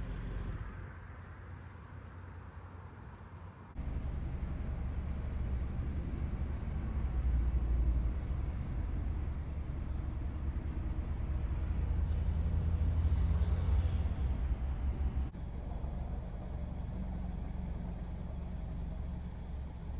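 Outdoor ambience: a steady low rumble that gets louder about four seconds in and eases about fifteen seconds in, with short high chirps repeating about once a second in between.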